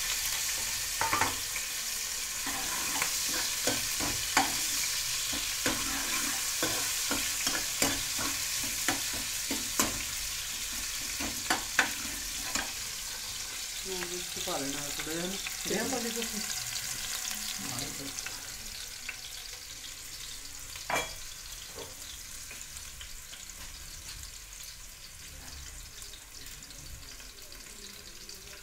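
Chopped garlic frying in hot oil in a metal kadhai, a steady sizzle that slowly fades. A metal ladle stirs and knocks against the pan, clinking often in the first half and once more later.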